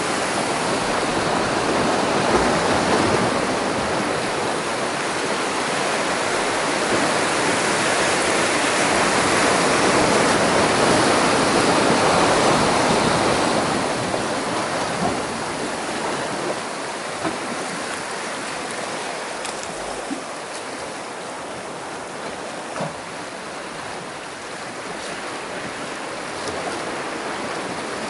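Sea waves surging and washing over shoreline rocks, a steady rushing of surf that is louder in the first half and eases off about halfway through.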